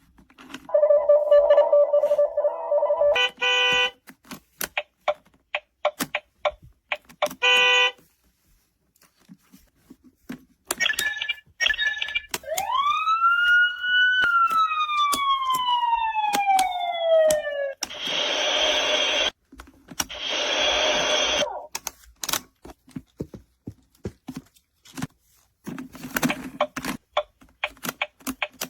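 Electronic sound effects from a toy busy board: a held horn-like tone, short beeps, a siren-like glide that rises and then slowly falls, and a few seconds of hissing noise. The switches, buttons and dials click again and again as they are worked.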